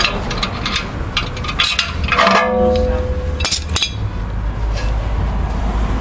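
Metal hand tools clicking and knocking against a rear brake caliper while its piston is wound back, with one ringing metallic clink about two seconds in and a couple more sharp clicks shortly after.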